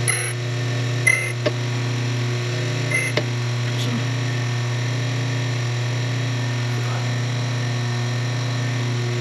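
Framon No. 2 key code machine's electric motor running with a steady hum while its cutter bites into a key blank. There are brief high-pitched cutting squeals about a second in and again about three seconds in.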